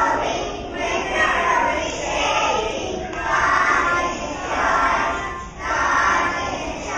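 A group of young children singing a song together, in loud phrases of about a second each with short breaks between them.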